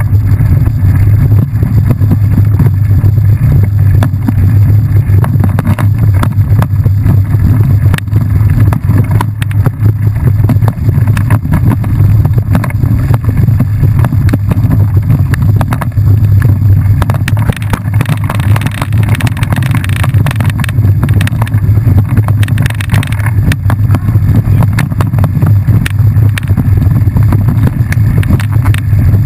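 Heavy, steady wind rumble on a bike-mounted camera's microphone, with constant rattling and clicking from a mountain bike moving fast over a dirt trail. A stretch of brighter hiss comes in about two-thirds of the way through.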